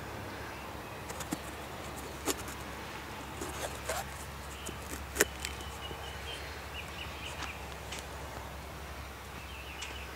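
A pocket knife cutting into a crisp, firm yellow bell pepper: a string of sharp cracks and snaps as the flesh breaks, the loudest about five seconds in. A steady low hum runs underneath.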